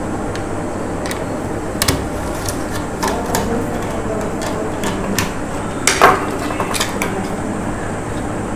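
Scattered small clicks and light knocks as a cut length of wire is handled and fitted to the switch terminals of a wooden switchboard box, over a steady background hum. The loudest knock comes about six seconds in.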